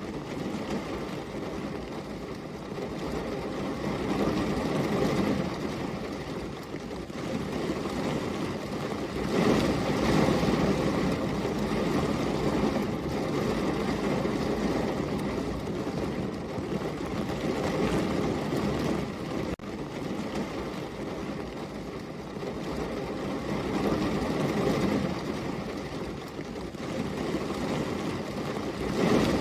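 Heavy rain falling, a steady rushing noise that swells and eases every few seconds, with a momentary dropout about two-thirds of the way through.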